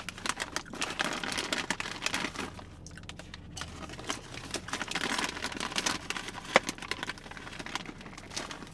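Snack-chip bag crinkling as a hand rummages inside it: a dense run of crackles with one sharper crackle a little past the middle.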